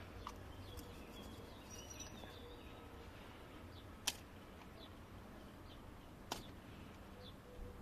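Two light, sharp clicks about four and six seconds in, from a thin pick working a small rubber seal off a plastic oil filter cap, over a faint outdoor background with a few bird chirps.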